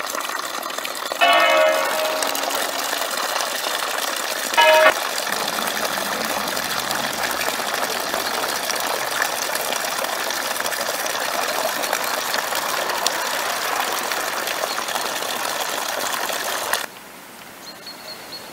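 Water pouring steadily from a public fountain's bronze animal-head spout and splashing below, cutting off about 17 seconds in to a faint background hiss. A church bell rings over it twice, about a second in and again just before five seconds.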